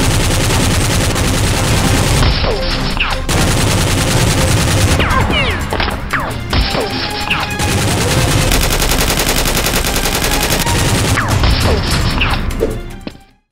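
Rapid, sustained gunfire sound effects over background music, with a few short whistles falling in pitch. It all cuts off suddenly near the end.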